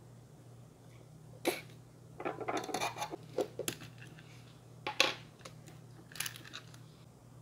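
Small clicks, taps and rattles of a laptop motherboard being worked loose and lifted out of its chassis by hand. There is a single click early, a run of clicks in the middle, and a few more near the end.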